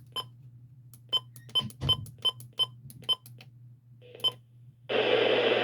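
Midland WR400 weather radio giving a series of about eight short electronic beeps at irregular spacing, as its buttons are pressed. Near the end its speaker cuts in with a loud, even hiss.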